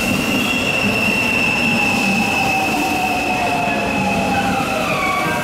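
JR West 223 series electric multiple unit running slowly alongside the platform as it pulls in, with a steady high-pitched squeal over a rumble and whining tones that fall in pitch as it slows.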